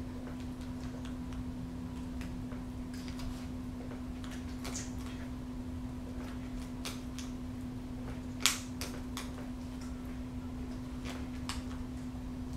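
Peregrine falcon tearing at quail meat: irregular small clicks and snaps as it pulls at the carcass, with one sharper snap a little past halfway. A steady low hum runs underneath.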